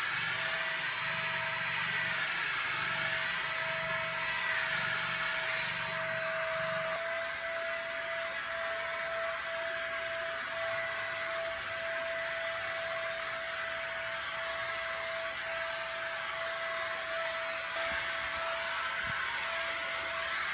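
INGCO SPG3508 450 W electric HVLP spray gun running and spraying paint: its motor gives a steady high whine over a constant hiss of air and paint.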